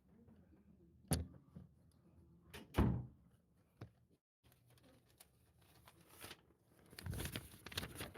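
A few separate sharp knocks or thuds about a second apart, the loudest near the three-second mark, then a stretch of close rustling and clicking near the end.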